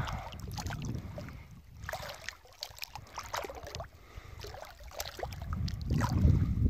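Water splashing and dripping as a cast net's rope is hauled in by hand through the water, in scattered small splashes. Wind rumbles on the microphone, growing stronger about six seconds in.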